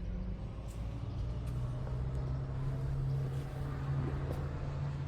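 A motor vehicle's engine running steadily, a low even hum with a few faint clicks over it.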